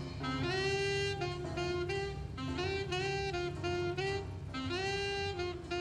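Jazz music: a saxophone playing a melody of short and longer held notes, over a low steady hum.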